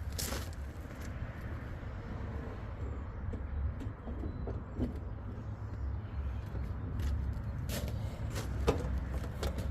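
Handling noise as a clock movement is lifted out of a longcase clock's wooden case: scattered knocks and clunks, several close together near the end, over a low steady rumble.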